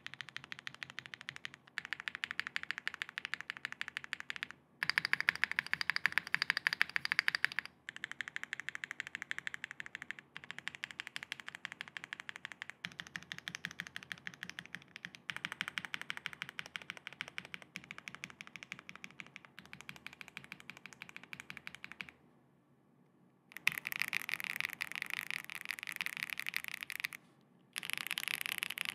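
Neson N6 custom mechanical keyboard with factory-lubed WS Red linear switches, PC plate, case and plate foam, and PBTFans PYGA PBT keycaps, typed on in fast continuous runs of keystrokes. The runs are broken by brief pauses, the longest about a second and a half, roughly three quarters of the way through.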